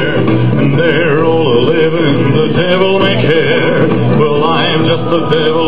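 A man singing into a hand-held microphone with a wide, wavering vibrato over backing music.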